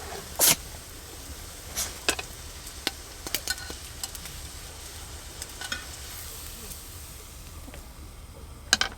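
Food sizzling in a frying pan, a steady hiss, with a utensil clicking and scraping against the pan now and then.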